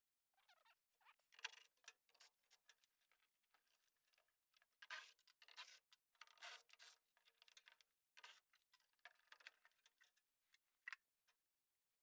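Faint clicks, scrapes and rustling of hands working the old draft inducer motor loose and lifting it out of a gas furnace's sheet-metal cabinet, with the furnace shut off.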